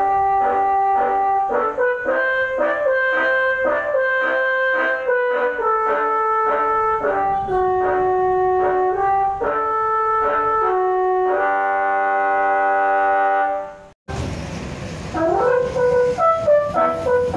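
Telolet bus horn, a bank of musical air horns, playing a tune note by note and ending on a long held chord. It cuts off suddenly, and another horn tune starts over road noise, its first note sliding upward.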